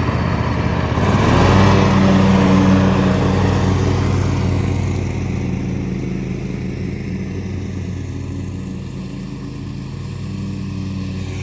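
Lawnmower engine running steadily; its pitch rises about a second in, and it then slowly grows quieter.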